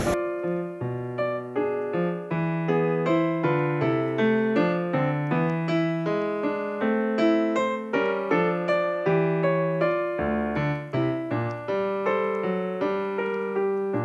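Solo piano music: an even run of struck notes, with low and middle parts moving together.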